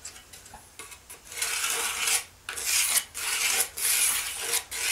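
Pencil scratching along a metal level used as a straightedge, drawing a line on a hand-planed white ash board in several strokes of about a second each.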